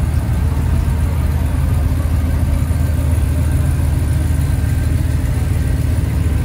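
Lowered Chevrolet Silverado pickup's engine running at low idle as the truck creeps past, a steady low rumble.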